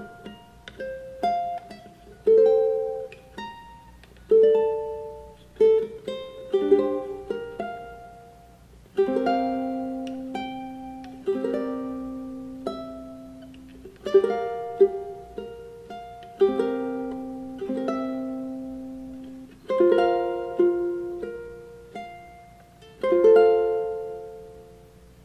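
Locomango TU-300s solid-top ukulele played solo: chords struck every second or two, each ringing and fading, ending on a last chord that rings out near the end.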